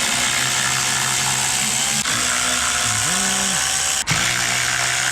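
A power tool running steadily with a loud hiss, likely a pneumatic or electric driver working on the climate box, with brief breaks about two and four seconds in.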